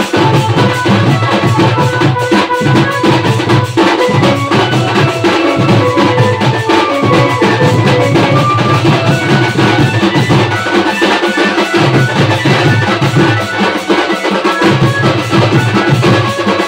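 Koraputia band party music: a group of shoulder-slung barrel drums and flat round drums beating a fast, dense rhythm under a steady melody of held notes, played loud.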